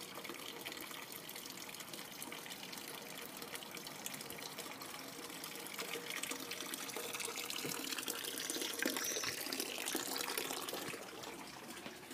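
Water running from a wall fountain's spout into its basin, a steady splashing that grows louder about halfway through and drops off near the end.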